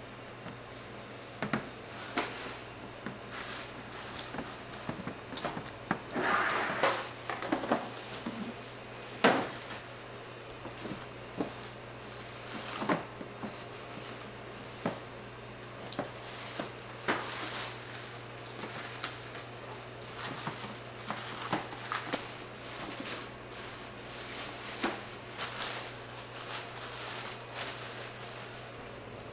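Plastic wrap crinkling and rustling as cookie dough balls are lifted out of lined containers, with scattered soft knocks and clicks of dough and metal sheet pans being handled; a sharp knock about nine seconds in is the loudest. A steady low hum runs underneath.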